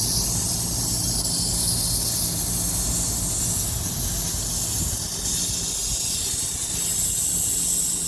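Steady hiss of gas rushing under pressure, over a low, steady machine hum.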